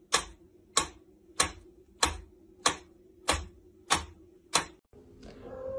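Mechanical pendulum metronome ticking at a steady beat, a sharp click on each swing about three times every two seconds. The ticking stops near the end.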